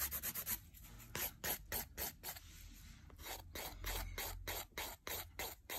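Curved hand nail file rasping back and forth over an acrylic nail in quick, even strokes, about three or four a second, to smooth out dips and level the surface.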